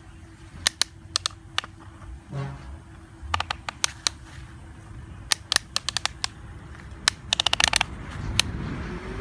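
Sharp hard-plastic clicks from a toy excavator's arm joints being worked by hand, coming singly and in pairs, with a quick rattling run of clicks about seven seconds in.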